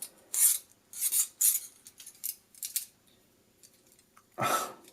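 Cheap die-cast toy handcuffs clicking and scraping as they are worked by hand: several short metallic clicks in the first three seconds, then a louder, longer scrape near the end.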